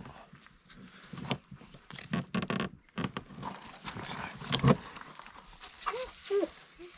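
Clicks, knocks and rattles of a 30-amp RV power cord plug being handled and pushed into a campsite power pedestal outlet, with a few brief squeaky glides near the end.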